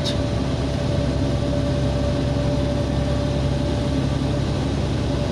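Steady engine and road noise inside a moving truck's cab: a low drone with a faint steady whine above it.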